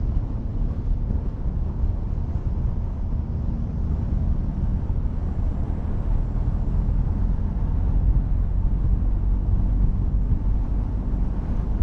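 Motorcycle engine running steadily at road speed, mixed with wind and road noise.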